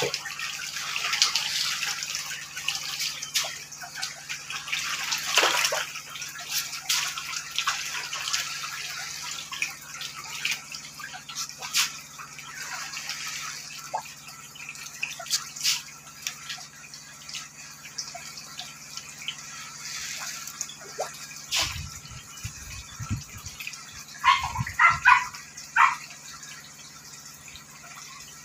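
Catfish thrashing at the water surface of a concrete pond: a constant jumble of small splashes and drips. Near the end come a few low knocks and a short run of high squeaky chirps, the loudest sounds here.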